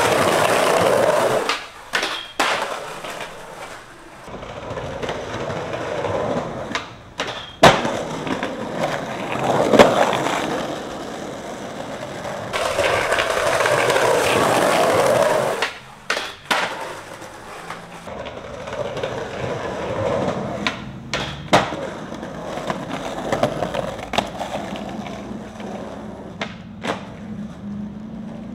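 Skateboard wheels rolling over pavement in long runs, broken by sharp clacks and knocks of the board hitting the ground; the loudest knocks come about eight and ten seconds in.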